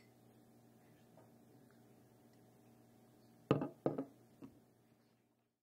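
Quiet restaurant room tone with a steady low hum, broken about three and a half seconds in by two dull knocks in quick succession and a softer third, then fading out.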